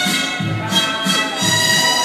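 Recorded music with a steady bass beat, about two pulses a second, under a held string-like melody.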